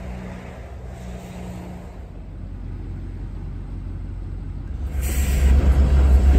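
Freight train of covered hopper cars rolling past, a low steady noise that grows louder and jumps up sharply about five seconds in.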